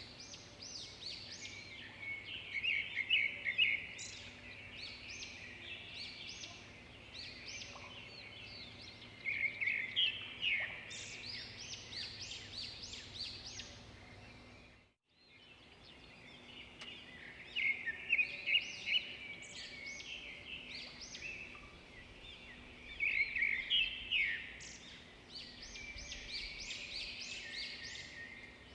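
Songbirds chirping in a dense, busy chorus of short, quick calls, with a brief break where the sound cuts out about halfway through.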